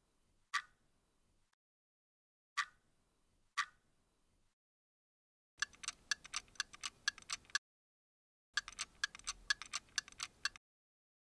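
Clock ticking: single sharp ticks about a second apart with one skipped, then two runs of rapid ticking, each about two seconds long, with a short gap between them.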